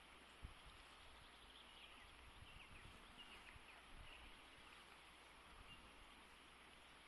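Near silence outdoors: a faint steady rush of flowing river water, with a few faint short high bird chirps and one soft low knock about half a second in.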